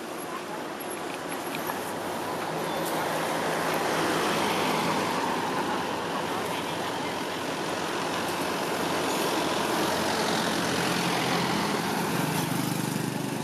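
Road traffic: motor vehicles passing on a road, with a steady tyre and engine noise that swells twice.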